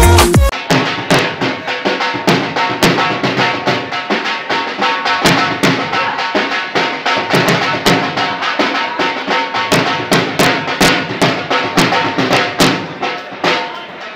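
Loud, drum-led jhoomar dance music: an even, fast beat of about three strikes a second with sustained notes running beneath it.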